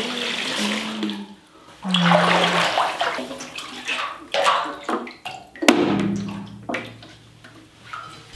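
Water splashing and sloshing in a bathtub in several bursts of about a second each, with quiet gaps between. A short low tone sounds under some of the bursts.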